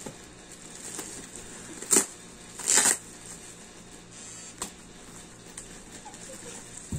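Parcel packaging being handled and ripped open: two short, sharp rustling tears about two and three seconds in, then a small click.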